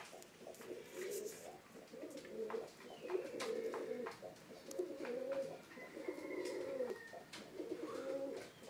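Several domestic fantail pigeons cooing, one low warbling coo after another with hardly a break, and faint scattered clicks among them.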